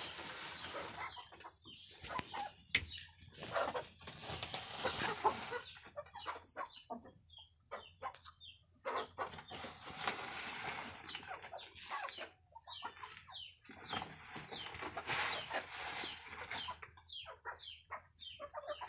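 A flock of hens and roosters clucking irregularly as they crowd to feed on scattered grain, with bursts of wing flapping among them.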